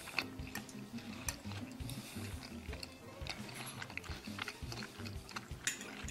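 A fork clinking and scraping against a ceramic dinner plate as a salmon fillet is cut and eaten, in many short sharp clicks, over background music.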